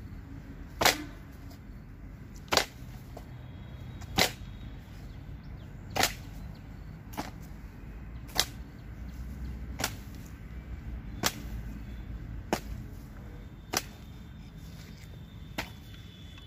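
A hand hoe chopping into the ground, about ten sharp strikes at an even pace of roughly one every one and a half to two seconds, the first few the hardest.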